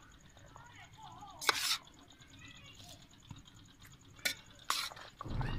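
Metal spoon scraping and clinking against a steel plate while a chopped chickpea, potato and macaroni salad is mixed: a few separate strokes, with quiet gaps between.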